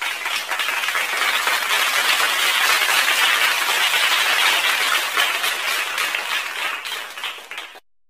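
Audience applause: many people clapping at once, steady, then easing off a little and cutting off sharply near the end.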